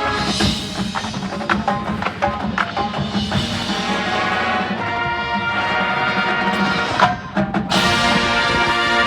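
High school marching band playing: sustained brass chords over percussion with sharp hits. About seven seconds in the sound drops away briefly, then the full band comes back in loudly.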